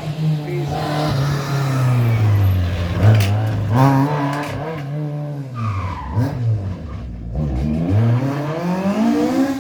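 Rally car engine revving hard, the revs dropping and climbing again several times as the driver lifts, brakes and shifts gear through a stage.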